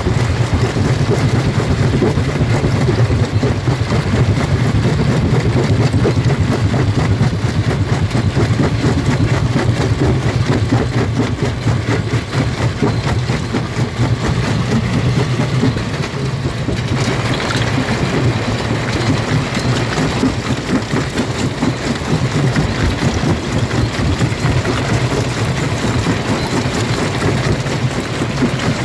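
Jaw rock crusher running: a steady low drone from its drive under dense crunching and rattling of stone being broken, which turns brighter and harsher a little past halfway through.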